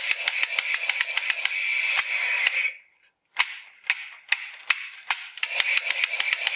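Toy revolver firing a rapid gunfire effect: sharp clicks about seven a second over a steady hiss. It stops briefly about three seconds in, gives a few spaced shots, then runs rapid again.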